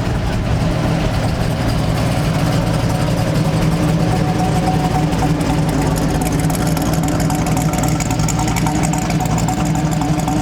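Big-block V8 muscle car engine idling steadily, with no revving.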